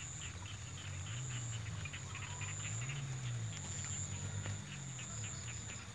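Insects, crickets among them, chirping in a field: a steady high trill with rapid repeated chirps beneath it. A low wavering drone runs underneath.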